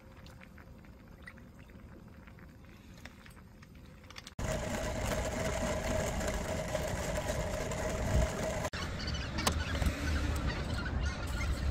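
A pot of ramen boiling faintly on a portable gas burner. Then, about four seconds in, the sound cuts to a coffee grinder grinding beans, much louder and steady, with a dense crackle and a held tone.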